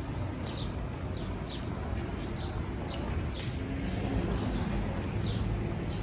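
Pedestrian crossing's audible signal chirping: short high falling chirps repeating about once a second over a low hum of street traffic.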